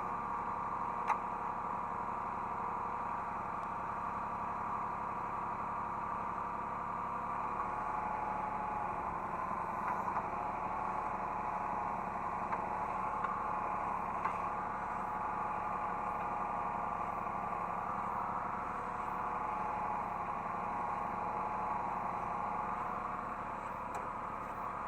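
Hydraulic excavator's diesel engine running steadily, heard from the operator's seat, with a few faint clicks.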